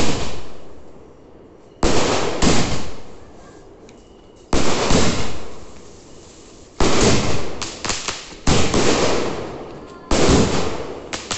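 Aerial fireworks bursting overhead one after another, about eight times. Each burst is a sharp bang with a noisy tail that fades over a second or two, and a few come in quick pairs.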